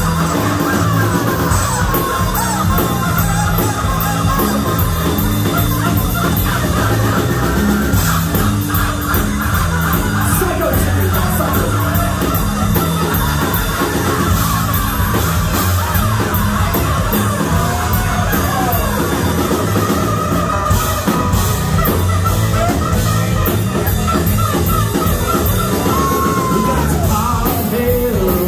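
Live rock band playing an instrumental stretch, with electric guitars, bass, drums and saxophone.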